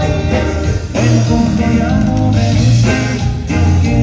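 Conjunto band playing live: accordion with guitar, electric bass and drums, a steady bass line pulsing underneath.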